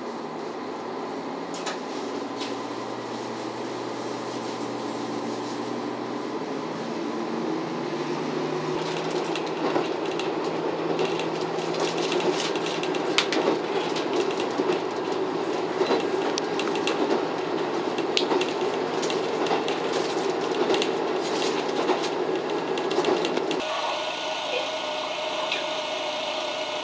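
KiHa 54 diesel railcar heard from inside, its engine note stepping up as it gathers speed and the wheels clicking over rail joints. Near the end the sound changes abruptly to a steadier whine with a hiss.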